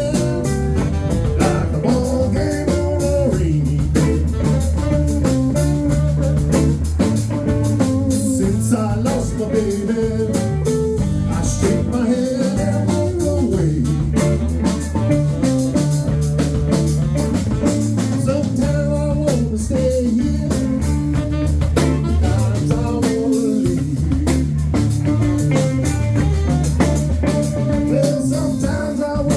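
Live band playing a song, with guitar and a drum kit keeping a steady beat.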